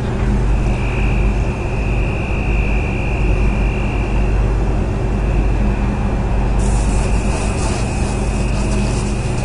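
Large ship's engines and machinery rumbling steadily, with a high whine held over the rumble during a ferry's docking manoeuvre. About two-thirds of the way in, a hiss joins on top.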